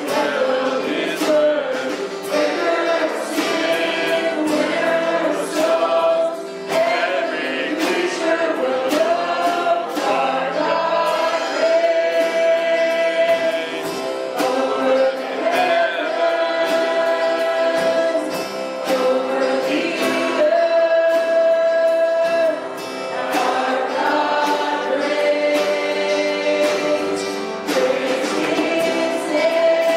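A church worship band performing a contemporary praise song: several singers in unison and harmony over acoustic guitar, electric guitar and drums, with long held notes.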